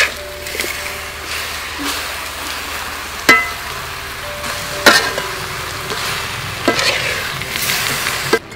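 Metal spatula stir-frying taro cubes in a metal wok over a steady sizzle, clinking sharply against the pan about five times.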